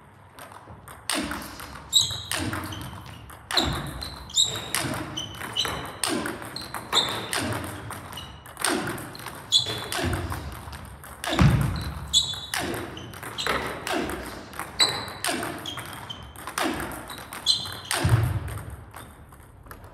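Table tennis multi-ball drill: backspin balls hit with forehand topspin drives, each stroke a sharp crack of ball on racket followed by the ball bouncing on the table, coming about once a second. Each crack rings on briefly in the hall.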